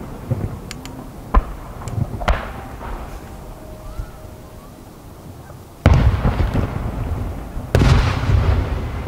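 Aerial fireworks shells bursting: small pops and a sharp bang in the first two seconds, then two heavy booms about six and eight seconds in, each followed by a long rumbling echo.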